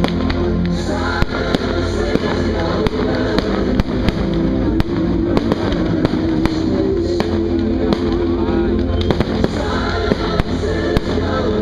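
Fireworks shells bursting in a rapid, irregular run of sharp cracks and bangs, several a second, over loud music.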